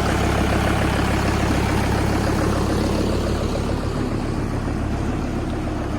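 Large farm tractor's engine idling steadily while it warms up from a cold start.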